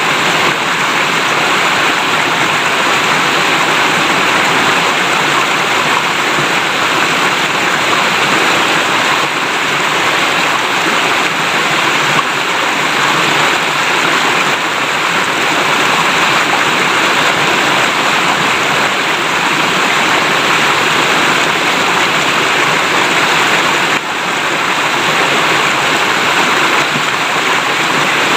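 River water babbling as it flows, a steady, even rush.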